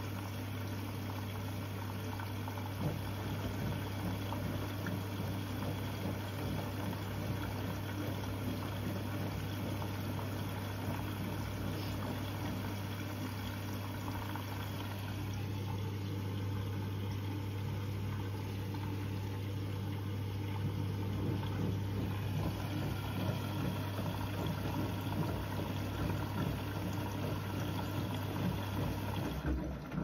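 Siemens front-loading washing machine filling with water at the start of a wash, water running and splashing into the drum. Under it a steady low hum runs and stops just before the end.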